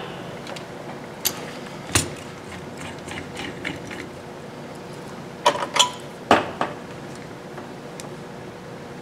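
Small tools and parts handled on a workbench during soldering: a handful of sharp clicks and taps, one or two early and a quick cluster of four a little past the middle, over a faint steady hum.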